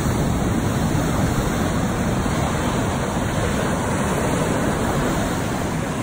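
Ocean surf breaking and washing up the sand: a steady, unbroken rushing noise.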